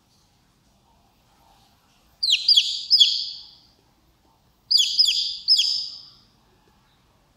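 Baby chick peeping: two bursts of three quick, high notes each, about two and a half seconds apart.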